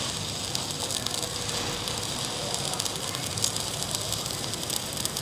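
Stick (MMA) welding arc from a Sasuke 200 Pro inverter welder, a steady crackle and hiss as the rod is dragged along thin-walled steel box tubing with the current turned up.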